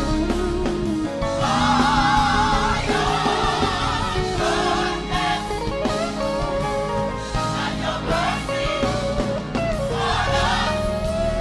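Gospel choir singing a praise song with band accompaniment.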